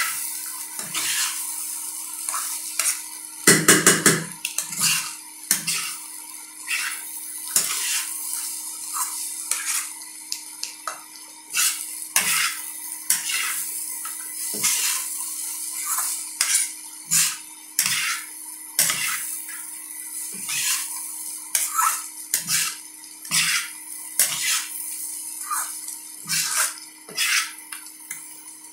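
Spatula scraping and clacking against a frying pan as shredded potatoes are stirred and tossed, irregular knocks over a steady sizzle, with a loud flurry of knocks about four seconds in. A steady low hum runs underneath.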